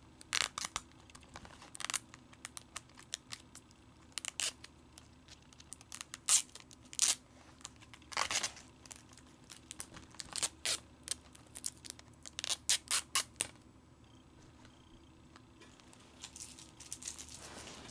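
Plastic shrink wrap being torn and crinkled off a Blu-ray case, in a run of short, sharp rips and rustles that stop a few seconds before the end.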